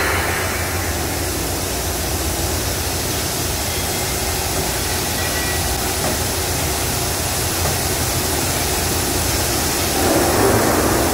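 Steady low machinery hum and rumble, swelling briefly louder about ten seconds in.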